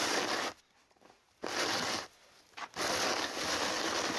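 Snow shovel scraping and crunching through snow as it is dragged along in spurts, in three spells with short pauses between them.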